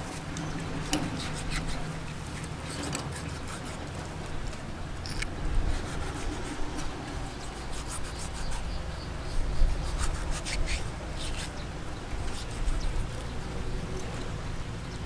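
Knife slicing raw shark fillet on a wooden chopping block, with scattered light knocks and scrapes of the blade against the wood.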